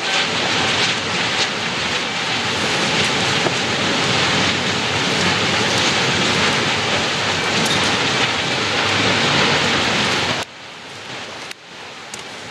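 Dense, steady hiss of hundreds of rockets streaking overhead at once, with scattered pops and crackles. The noise drops sharply about ten seconds in.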